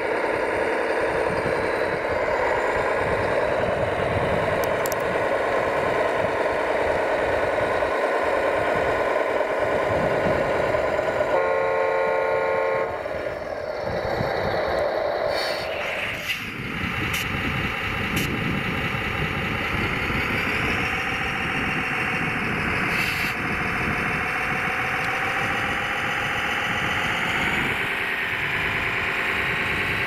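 Radio-controlled construction models running with a steady engine-like drone. There is a short horn toot a little before the middle. The drone's note changes about halfway and rises a few seconds later.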